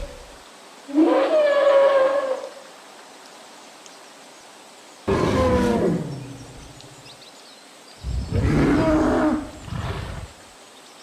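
Dinosaur roar sound effects: three separate roars, the middle one falling in pitch.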